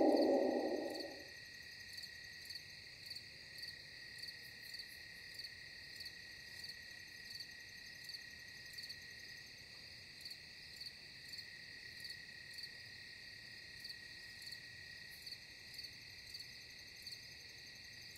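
Crickets chirping faintly and steadily: a high continuous trill with evenly spaced chirps a little under two a second. In the first second the tail of a loud falling wail dies away.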